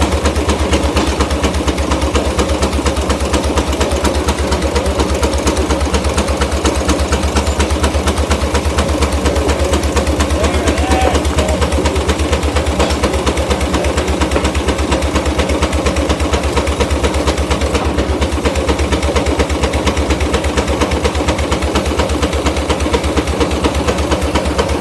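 Case portable steam engine running steadily, with a fast, even beat and a strong low rumble that hold unchanged throughout.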